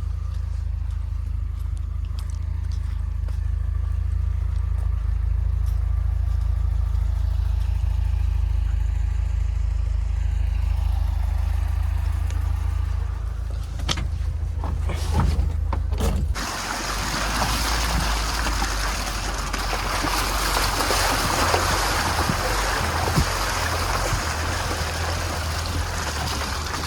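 UAZ Hunter off-road vehicle driving, its engine a steady low drone. About sixteen seconds in, a loud even rushing noise takes over from the drone.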